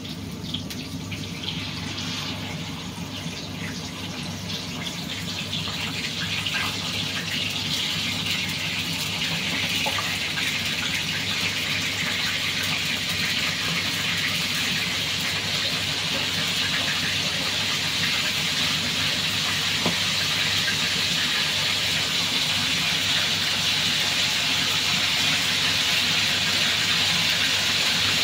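Squid frying in hot oil in a pan: a dense, steady sizzle that builds over the first ten seconds or so, then holds and slowly grows louder.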